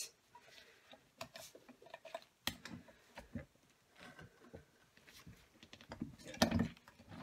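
Small clicks and rustles as a vinyl piece and metal rivet parts are fitted under a hand-operated snap press. About six seconds in, the press comes down with a louder knock, setting a double-cap rivet through the tab.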